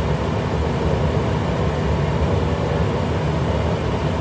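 Jet airliner cabin noise in flight: a steady, low rumble.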